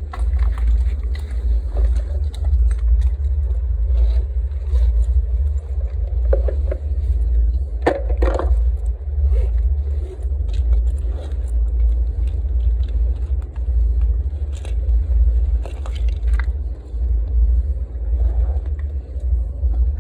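Steady wind rumble on the microphone, with scattered rustles and clicks from clothing and gear, a louder cluster of them about eight seconds in.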